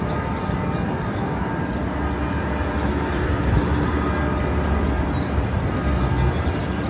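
A train running: a steady rumble with faint steady whining tones above it.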